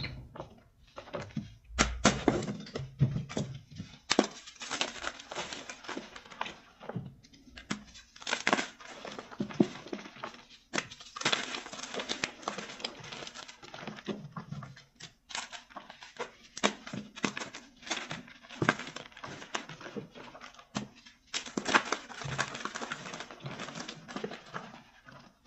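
Blocks of gym chalk crunching and crumbling, in repeated bursts of dense crackling a second or more long with short pauses between them.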